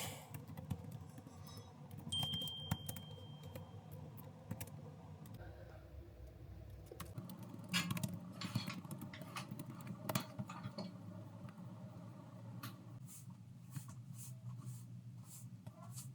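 Quiet room tone with scattered light clicks and knocks, and a brief steady high beep about two seconds in.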